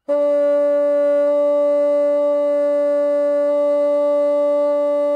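Bassoon holding one long, steady D in the upper octave, starting cleanly and sustained without a break. It is played to compare the tone with the Jordan key vent open and closed, and the difference is subtle.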